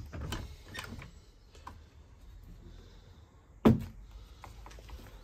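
A wooden door swung open against a new timber door-stop block fixed to a wall, landing with one sharp knock about three and a half seconds in, as the stop is tried out; a few faint knocks and handling sounds come before it.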